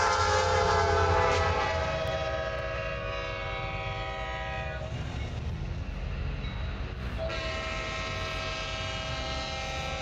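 Diesel freight locomotive air horn sounding a multi-note chord over the low rumble of the train. It drops slightly in pitch and gets quieter about a second and a half in and breaks off near the middle. A horn sounds again about seven seconds in.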